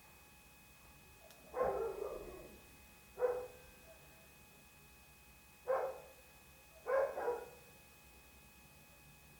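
A dog barking in single, separate barks a second or two apart, four times, the last a quick double bark.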